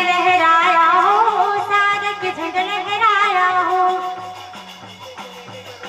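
Panthi folk dance music: a loud, wavering, ornamented melody over a steady, repeating drum rhythm. The melody fades out about four seconds in, leaving the drum pattern.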